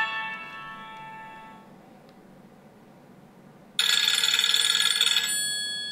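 Nokia N93 mobile phone playing ringtone previews through its built-in loudspeaker as the tone list is scrolled. A melodic tone fades out over the first two seconds. After a short quiet, a second, brighter and denser tone starts about four seconds in and tapers off near the end.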